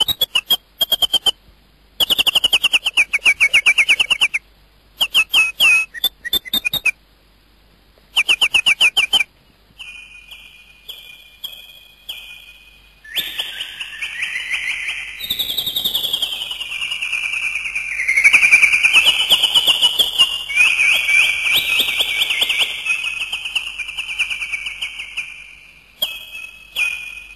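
High-pitched bird calls: fast chattering trains of notes broken by short pauses, then from about halfway a dense chorus of many overlapping calls that glide up and down in pitch.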